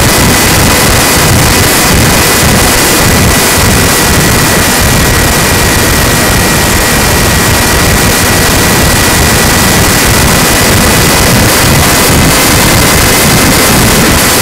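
Loud, steady rushing noise of wind on the microphone, with a thin, steady high whine underneath, as from an electric RC plane's motor and propeller in flight.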